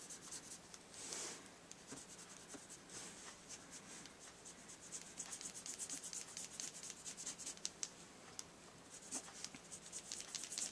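Faint scratchy rubbing of a clear Wink of Stella glitter brush pen stroked back and forth over cardstock, in many short, quick strokes that come more often in the second half.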